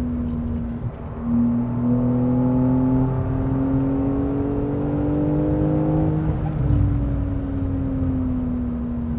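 Porsche 911 Carrera S's 3.0-litre twin-turbo flat-six heard from inside the cabin on a track lap. Its note climbs steadily under throttle after a brief dip about a second in, then falls away from about six seconds in as the car slows for a corner.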